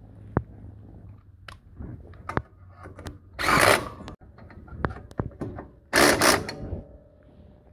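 Cordless power tool running nuts down onto a replacement trailer electric-brake backing plate, in two short bursts of under a second each, about three and six seconds in. Light clicks and knocks of handled parts come between them.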